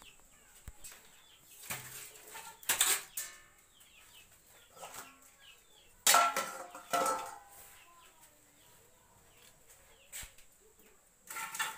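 Chickens: a string of short, high, falling peeps, broken by two loud bursts of squawking and wing-flapping about three and six seconds in.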